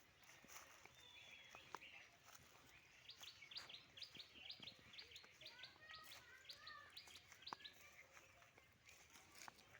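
Faint birdsong: a small bird gives a rapid series of short high chirps, about four a second, starting about three seconds in, with a few lower warbling notes from another call partway through.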